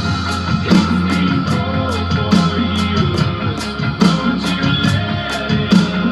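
A rock song with guitar and a steady drum beat, drummed along to with sticks on an electronic drum kit.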